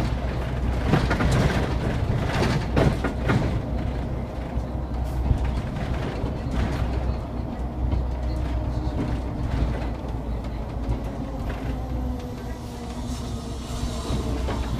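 Inside a moving city bus: a steady low engine rumble with road noise, interior fittings rattling and knocking, most clearly about one to three seconds in. A faint whine falls slowly in pitch over the second half.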